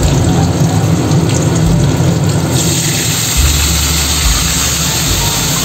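Salt-and-turmeric water going into hot mustard oil in a kadai and sizzling; the sizzle becomes much louder and hissier about two and a half seconds in, over a low steady hum.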